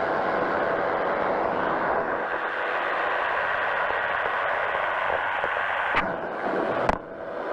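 Powered parachute's engine and propeller running steadily in flight, with rushing air. Near the end come two sharp clicks, and the sound dips briefly.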